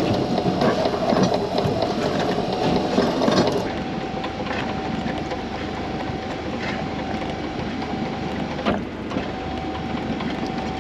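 Boat's net hauler running with a steady whine as the gill net comes aboard, with rattling and knocks over the first few seconds. The whine stops briefly near the end and starts again.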